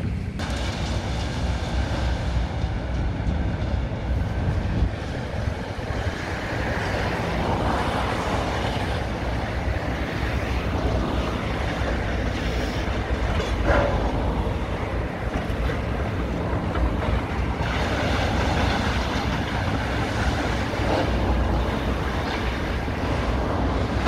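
Demolition excavators working on a concrete building: diesel engines running under a continuous rattling, crunching clatter of breaking concrete and falling rubble, with one sharper crack about fourteen seconds in.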